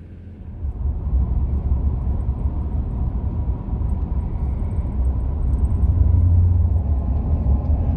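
Car driving on the road: a steady low rumble of tyres and engine, which comes in abruptly under a second in.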